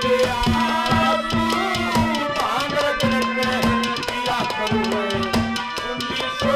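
Instrumental interlude of Haryanvi ragni folk music: harmonium holding a steady drone under a melody, with hand drums and a struck clay pot (ghara) keeping a brisk, even rhythm.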